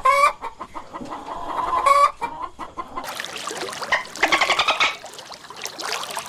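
Chickens clucking, with two drawn-out hen calls near the start and about two seconds in, then a brighter run of rapid clucks from about three seconds in.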